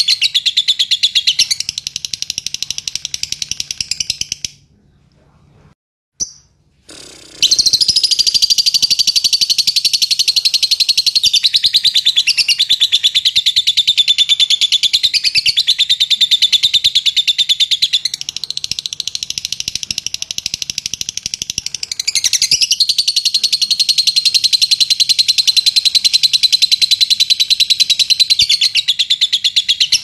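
Fischer's lovebird giving its rapid 'ngetik' call, a fast, steady run of high clicking notes like typing, with small shifts in pitch. It breaks off for about three seconds a few seconds in, then carries on. This is the call used to prompt other lovebirds into long 'ngekek' chattering.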